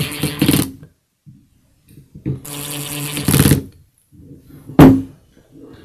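Cordless drill/driver running in two short bursts, driving self-tapping screws into a drill's plastic housing. A single sharp knock near the end is the loudest sound.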